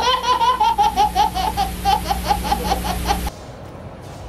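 Baby laughing hard in a fast run of short bursts, about five a second, over a steady hum. It cuts off suddenly a little past three seconds in.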